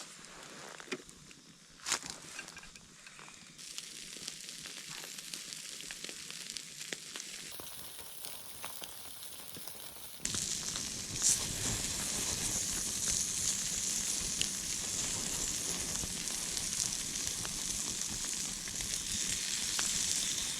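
Faint scattered clicks and knocks, then from about halfway through, food sizzling steadily in a hot frying pan.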